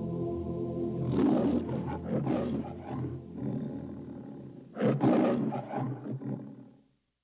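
The MGM logo lion roaring twice, the second roar about five seconds in, after the closing music ends about a second in; the sound stops abruptly near the end.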